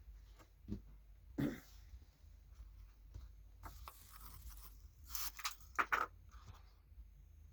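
Small handling noises at a repair bench: soft rustles and taps, with a few sharper clicks about five and six seconds in, as tools are worked during soldering of a phone charging connector.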